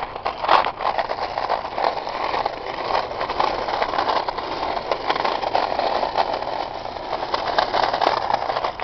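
Caster board wheels rolling steadily over rough pavement, with scattered small clicks and scrapes and a sharper knock about half a second in.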